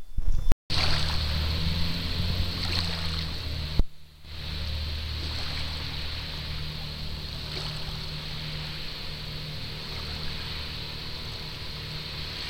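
Fire boat's engines running steadily, a low hum under an even hiss of water spray. The sound drops out very briefly about half a second in and dips again near four seconds.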